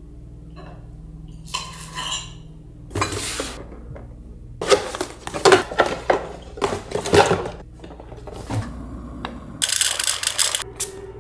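Dishes and cutlery clattering, a run of sharp clinks and knocks in the middle, with two short rushes of noise, one before the clinks and one near the end.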